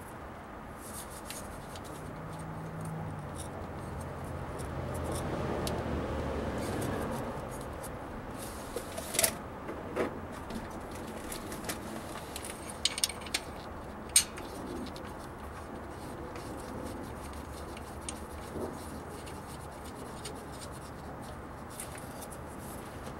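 Scattered light clicks and taps of hand work fitting a cover plate over the rear freeze plug hole of a Cummins 6BT engine block, the sharpest about nine, ten, thirteen and fourteen seconds in. A low hum swells and fades over the first several seconds.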